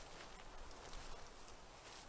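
Faint rustling with a few scattered light clicks.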